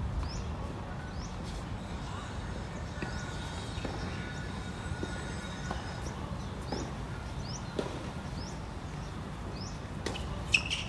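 Steady low outdoor rumble with a small bird chirping now and then, short gliding notes several seconds apart. A tennis ball is struck sharply by a racket near the end.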